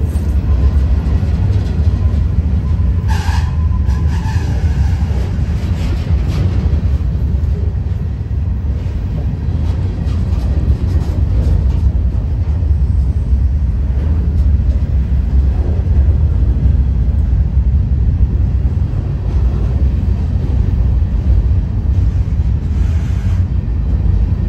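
Freight train cars rolling past at close range: a steady, loud low rumble of wheels and cars on the track, with a brief squeal about three seconds in.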